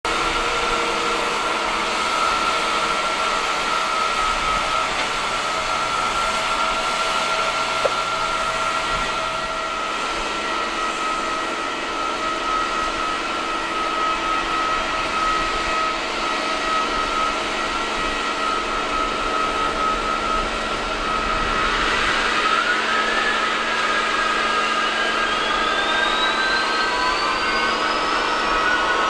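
Steady jet whine and hum around a Boeing 777-200ER airliner during pushback. From about three quarters of the way through, a rising whine climbs steadily in pitch as one of its jet engines spools up on start.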